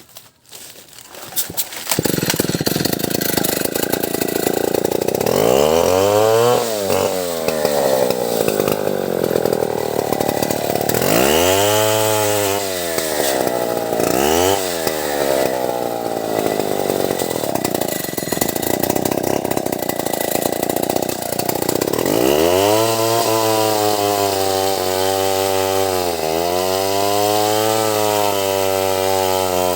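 Stihl 070 two-stroke chainsaw running at high revs, coming in loud about two seconds in. Its engine pitch drops and recovers several times and holds steady near the end.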